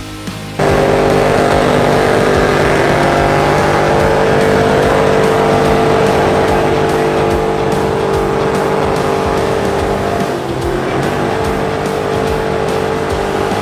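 A car engine held at high, steady revs with tyres squealing, as in a burnout. It cuts in suddenly about half a second in, and the pitch dips briefly around ten seconds in.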